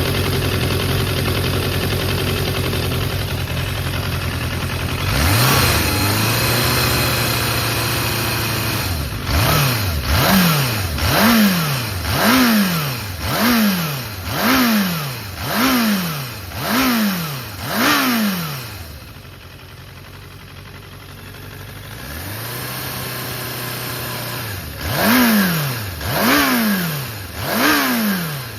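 Suzuki GSX400S Katana's four-cylinder engine idling, then blipped repeatedly: after a brief held raise in revs it is revved about once a second, each rev climbing sharply and falling back, nine times over, drops to idle, and is blipped three more times near the end. It runs cleanly, sold as free of abnormal noises.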